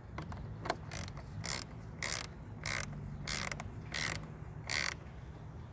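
Hand socket ratchet clicking through about seven quick strokes, a little under two a second, as it tightens the nut on a car battery's terminal clamp.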